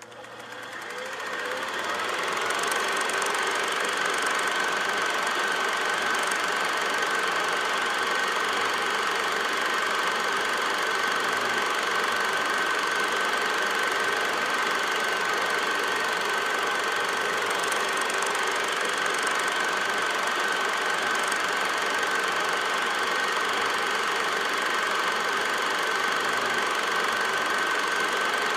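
8mm film projector running, a steady mechanical sound with a constant high whine, coming up to speed over the first couple of seconds.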